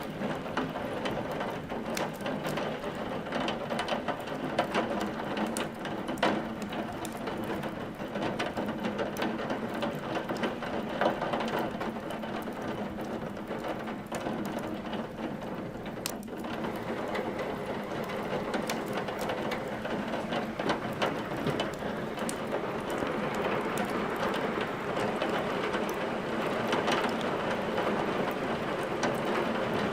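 Steady rain with a wood fire crackling in a fireplace: a continuous hiss of rain under irregular sharp pops and snaps from burning logs.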